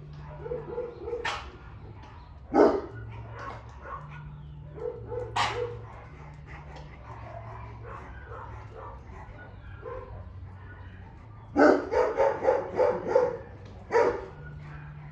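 Dogs barking: single barks about two and a half and five and a half seconds in, then a quick run of barks near the end, over a low steady hum.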